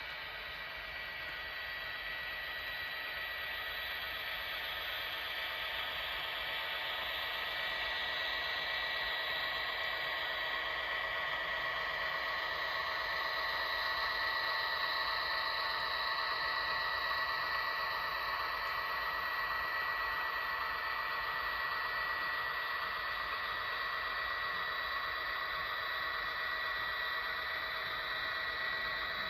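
HO-scale model train running along the track: a steady mechanical whir and rattle of the motor and wheels with a thin constant whine. It grows louder over the first half and eases slightly after.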